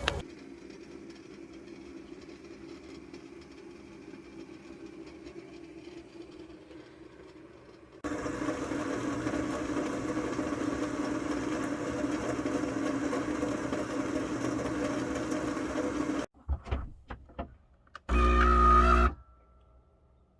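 A small motor or appliance running with a steady hum, louder after an abrupt change about eight seconds in, then a few short clicks and a brief loud low thump near the end.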